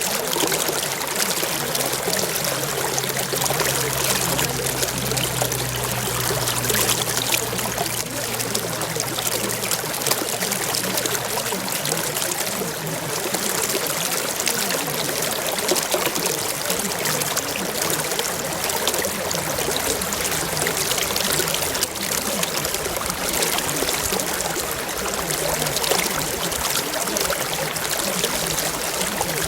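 Steady running water, an even rushing and trickling with no breaks. A faint low hum sits under it for the first part and fades out later on.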